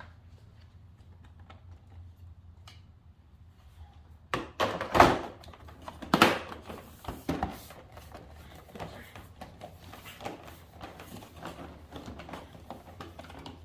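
Plastic tank cover panel of a motorcycle being pressed back on, its tabs clicking into place: a few sharp knocks and clicks about four to seven seconds in, then lighter clicking and rattling of the plastic.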